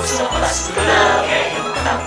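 Upbeat Christmas pop song with jingle bells, a bass line pulsing about twice a second, and voices singing.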